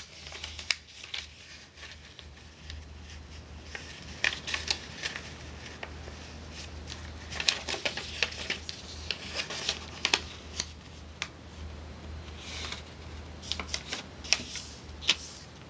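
A sheet of printing paper being folded and creased by hand on a table: rustling, with scattered sharp crinkles and taps as the fold is pressed flat. A steady low hum sits underneath.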